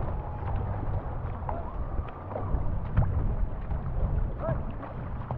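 Canoe paddles stroking through river water, with wind buffeting the microphone as a steady low rumble and a single knock about three seconds in.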